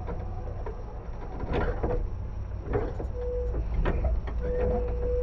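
Interior sound of a Tobu 10030 series electric commuter train: a steady low rumble with scattered knocks and clicks, and a tone that comes on and off several times.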